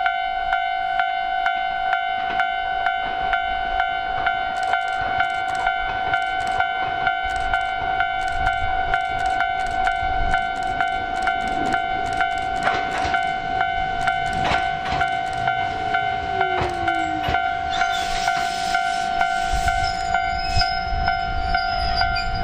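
A level-crossing warning bell dinging evenly, just under two strikes a second. From about twelve seconds in, an Ichibata Electric Railway 2100-series electric train rumbles in, with a falling whine as it slows and a hiss near the end as it draws to a stop.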